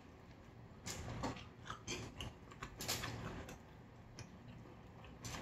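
Eating at a table: scattered faint clicks and taps of cutlery against dishes at an uneven pace.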